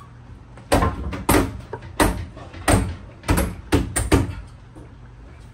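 About eight sharp knocks in quick, uneven succession against a white ceiling panel being pressed up onto the plywood ceiling of a cargo trailer.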